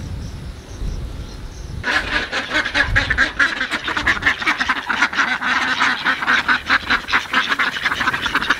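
A flock of domestic ducks quacking, many birds at once in a rapid, unbroken chatter that starts about two seconds in. Before that there is only a low rumble.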